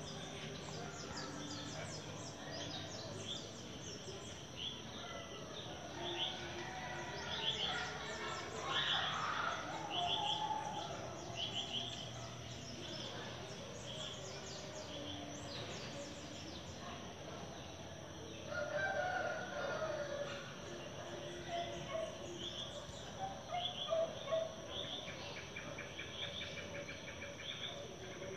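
Animal sounds: a rooster crowing twice, about nine seconds in and again near the middle, over repeated short bird chirps and a steady high-pitched tone.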